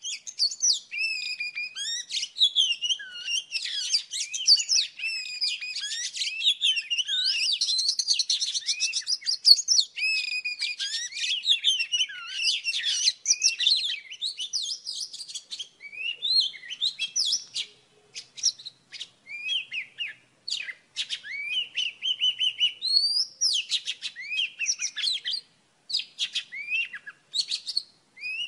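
Oriental magpie-robin singing: a long, varied run of whistled phrases and glides. The song is dense and unbroken for roughly the first half, then comes in shorter phrases and sharp notes with brief pauses between them.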